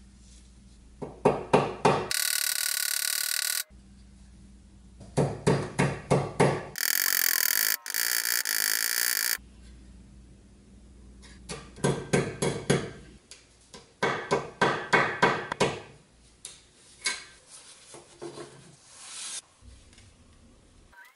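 Quick runs of sharp metal taps as thin steel rods are struck and shaped on a bench vise's anvil. Twice a loud, steady, high-pitched ringing noise cuts in and stops abruptly.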